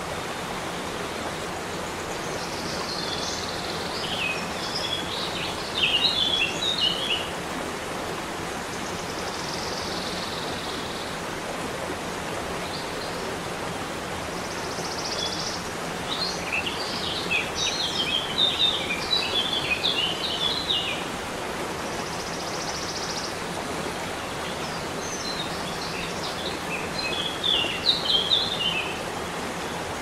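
Small waterfall splashing steadily over rocks into a pool, with a songbird singing three times over it; each song opens with a drawn-out high note and breaks into a quick jumble of twittering notes.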